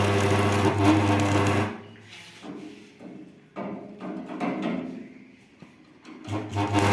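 Electric arc welder buzzing and crackling while welding the worn elevator of a combine harvester. A run of a little under two seconds at the start stops, a few faint crackles follow, and a new run starts near the end.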